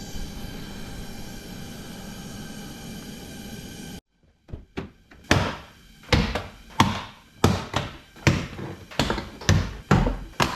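A steady hum with a few fixed tones, then, after a cut, a regular run of about nine dull thunks, roughly one every 0.6 s, from work on a BMW E39 5-Series door to free its interior door handle.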